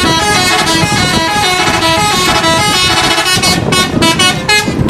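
A tour bus's multi-tone musical horn, sounding in a quick run of stepping notes.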